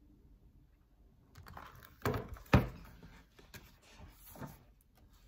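Handling noise: rustling, with two sharp knocks about half a second apart and a softer knock later, as the book and recording setup are moved around.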